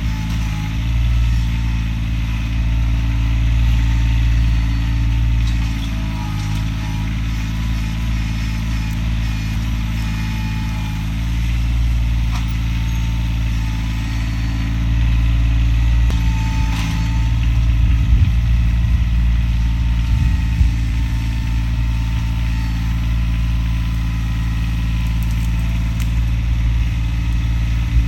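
Tractor engine running steadily, with a few sharp knocks about two-thirds of the way through.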